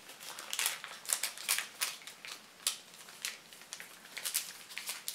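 Rustling of a crinkly plastic blind-box bag and small plastic figurine pieces being handled: many light, irregular clicks and crackles.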